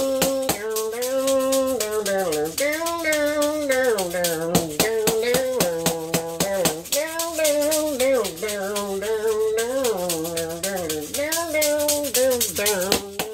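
Maracas shaken in a steady rhythm, about four shakes a second, over a slow melody that holds and slides between notes.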